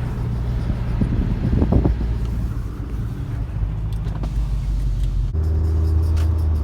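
A 2006 Audi A4 on the move with a steady low rumble. There is a brief louder burst about one and a half seconds in, and the sound settles into a steadier low hum about five seconds in.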